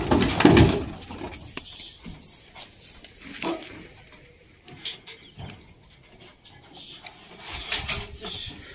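A cow's hooves knocking on a truck's wooden tailboard ramp as it is led down, loudest in the first second, then quieter scattered knocks and shuffling, with a few sharper knocks near the end.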